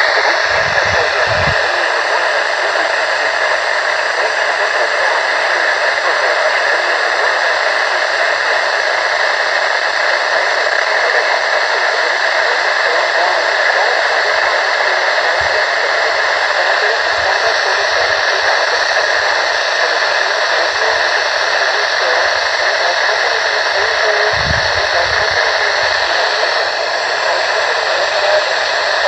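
Weather radio receiver hissing steady static through its small speaker, with no voice broadcast coming through. A few brief low bumps sound under the hiss near the start and again about 24 seconds in.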